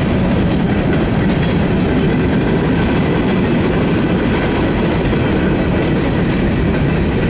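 Freight train covered hopper cars rolling past at close range: a loud, steady rumble of steel wheels on the rails, with light clicks as the wheels cross rail joints.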